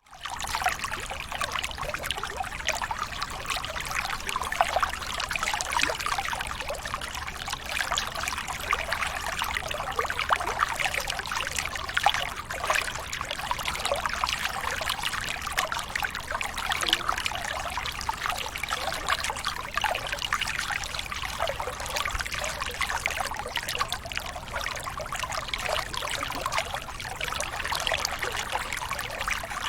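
Flowing water trickling and splashing steadily.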